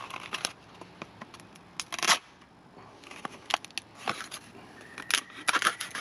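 An old carbon-steel Puma hunting knife slicing into a fibrous palm bract: several short cutting strokes at irregular intervals, the loudest about two seconds in.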